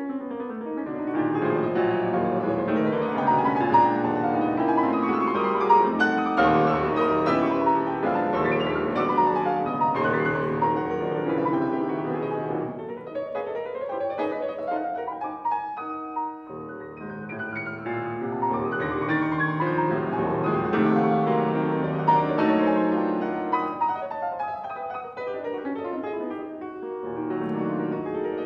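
Steinway concert grand piano played solo in a classical piece: dense, loud passagework with fast sweeping runs up and down the keyboard, broken by a momentary pause about halfway through.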